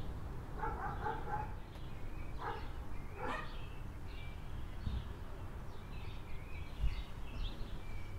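Birds chirping and calling now and then over a steady low background rumble.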